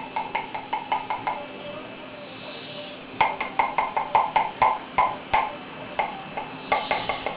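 A spoon clinking rapidly against a small dish of baby-bird hand-feeding formula, about five ringing taps a second in three quick runs, as the mash is scraped and worked together.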